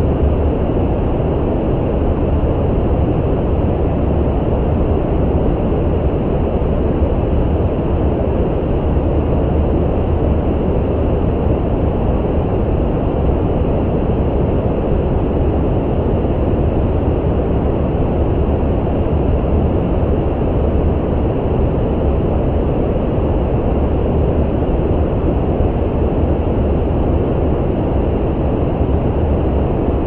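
Steady brown noise: an even, deep rushing sound with most of its weight in the bass and little treble.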